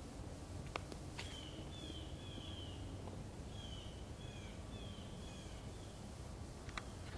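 Birds calling again and again in short chirps that slide downward in pitch, over steady low background noise, with a few sharp clicks.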